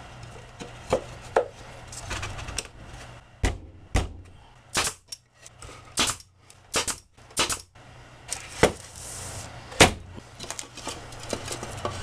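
Cedar boards being handled and knocked together during birdhouse assembly: about ten sharp wooden knocks and clacks at irregular intervals, some close together.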